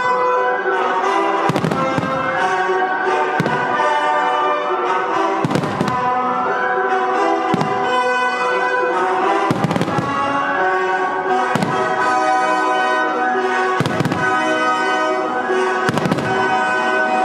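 Fireworks display: shells bursting with sharp bangs about every two seconds over loud orchestral music.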